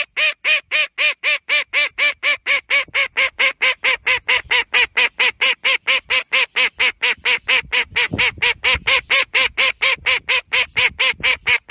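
White domestic duck quacking in a long, rapid, evenly spaced series, about four loud quacks a second without a pause.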